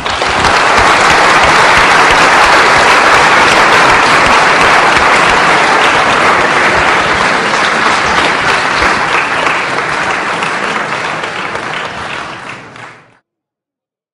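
Audience applauding in a lecture hall: dense, steady clapping that starts abruptly, gradually thins out, then cuts off sharply about thirteen seconds in.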